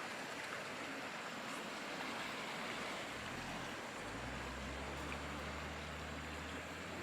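Steady wash of sea surf against a rocky shore. A low rumble joins it about four seconds in.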